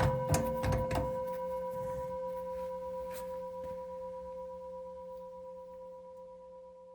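A single sustained bell-like ringing tone, struck just before and slowly fading away, with a few sharp clicks in the first second.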